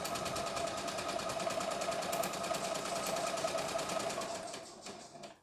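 CNY E960 computerized sewing and embroidery machine stitching an automatic buttonhole with a rapid, steady run of needle strokes. It slows and stops just before the end as the buttonhole is finished.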